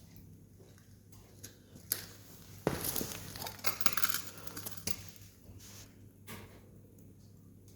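Wood campfire crackling, with sharp pops scattered through and a louder, denser flurry of crackles and hiss from about three to five seconds in.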